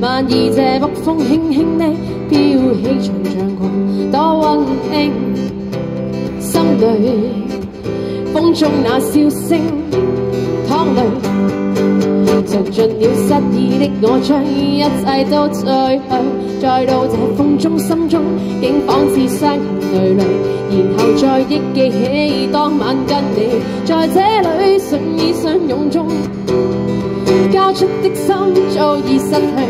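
A woman singing a pop song live to acoustic guitar accompaniment.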